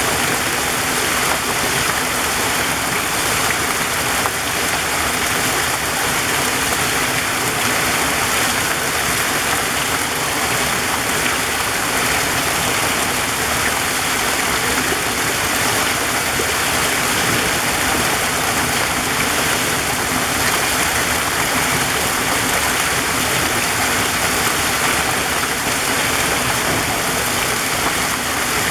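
Waterfall in a forest: water rushing steadily with an even, unbroken splash.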